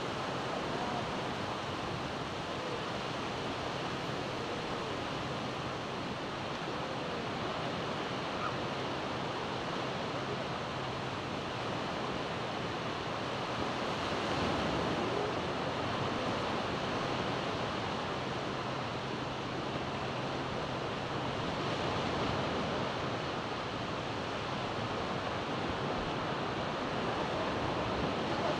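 Surf washing onto a sandy beach, a steady rush of breaking waves that swells a little about halfway through and again near the end.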